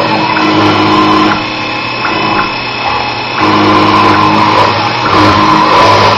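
Sherline 2000 CNC mill cutting with a 1/8-inch straight-flute end mill. The spindle runs steadily while the stepper-driven axes hum, and their tones start and stop every second or two as the feed moves change.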